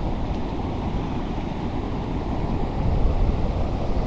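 Steady roar of a waterfall on the Curuá River: rushing water with a deep, even rumble.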